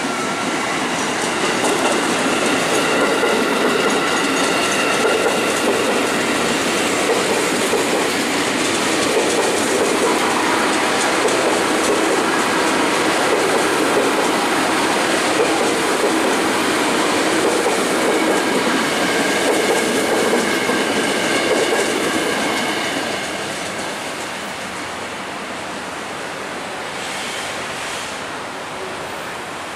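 Ex-Japanese 205-series electric commuter train passing close by: a loud, continuous rumble of steel wheels on rail with a steady high whine over it. The sound drops off about 23 seconds in as the last cars go by.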